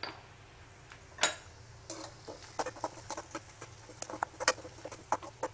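A spatula stirring a tempering of shallots, red chillies and curry leaves in a pan, scraping and tapping the pan in an irregular string of clicks and scrapes. The loudest comes about a second in.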